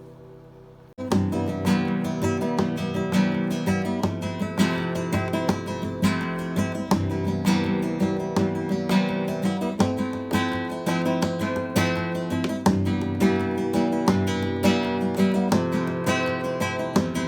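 Acoustic guitar with a Brazilian rosewood back being played as a sound test. A chord rings and fades for about a second, then a busy passage of strummed chords and picked notes begins.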